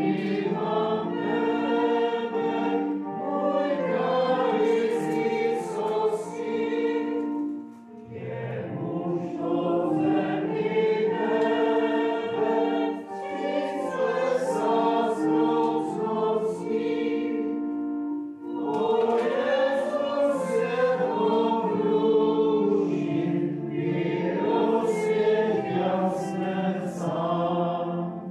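Congregation singing an Advent hymn together, in phrases of held notes with short breaks between them about 8 and 18 seconds in.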